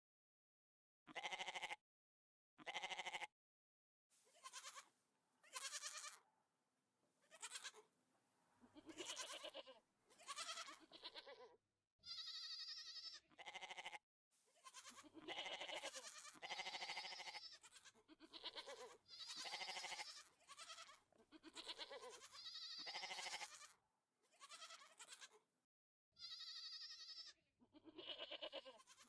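Repeated bleat-like animal cries, each about half a second to a second long, coming roughly once a second.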